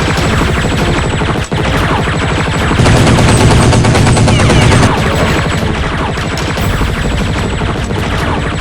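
Rapid automatic gunfire with music underneath, heaviest from about three to five seconds in.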